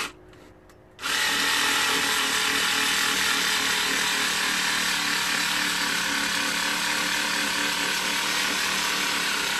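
Small battery-powered pumpkin-carving saw running with a steady motor whine as it cuts into a pumpkin; it is off for a moment, then starts again about a second in and runs evenly.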